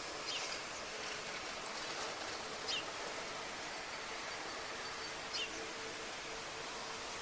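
Steady outdoor hiss with a small bird's short, high, down-slurred call, repeated about every two and a half seconds.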